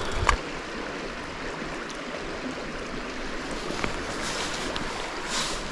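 Trout stream running, a steady rush of flowing water, with a short knock about a third of a second in.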